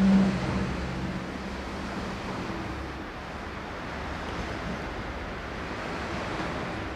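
Town street ambience: a steady rushing background noise of distant traffic. A low hum, loudest in the first half-second, fades away over about a second and a half.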